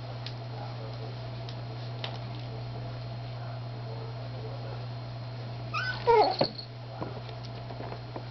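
A three-week-old Miniature Schnauzer puppy gives one brief, high yelp with quickly bending pitch about six seconds in, during rough play with its littermates. A steady low hum and faint scratches on newspaper lie underneath.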